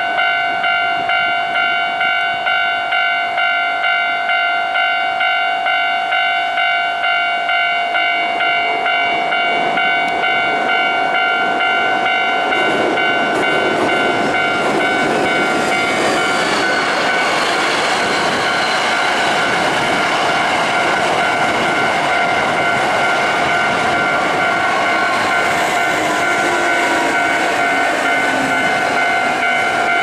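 Japanese level-crossing warning bell ringing in quick, even strokes. From about twelve seconds in, a Hankyu electric commuter train passes close by, and its rushing wheel-and-rail noise swells up under the bell.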